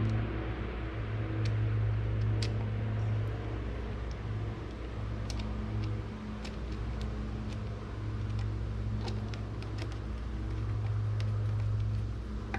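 A steady low mechanical hum runs throughout, swelling and easing slightly. Scattered light clicks and taps come from handling and threading the top vent screw into the outboard's gear case.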